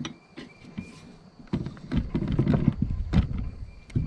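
Small tractor tire being pried over its rim by hand with a pry bar and tire irons: rubber scraping and creaking against the rim with a string of sharp metal clicks and knocks, growing busier and heavier about a third of the way in.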